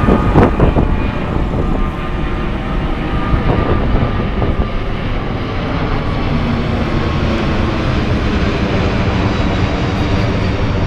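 Airbus A380's four Rolls-Royce Trent 900 turbofans running at high power as the jet climbs steeply overhead: a loud, steady jet noise with a faint whine near the start.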